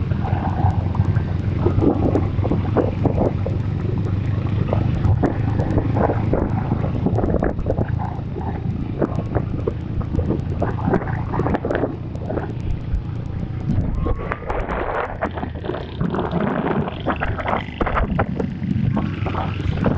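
Motorcycle engine running steadily with heavy wind noise buffeting the microphone, with many short crackles and knocks over it.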